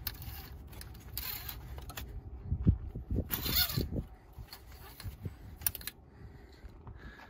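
Metal oil dipstick sliding down into its tube and being drawn back out of a semi truck's engine: faint scraping with a few light knocks and clicks.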